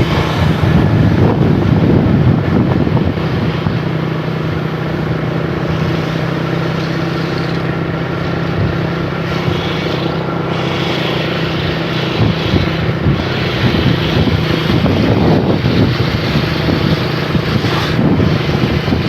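Motorcycle engine running steadily at a constant pitch, with rumbling road and wind noise.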